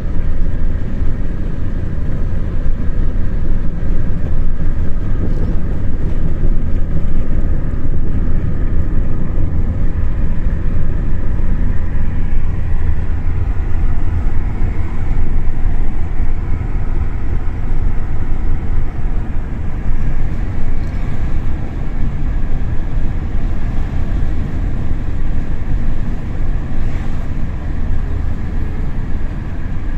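Steady low rumble of a moving vehicle, engine and road noise running on without a break.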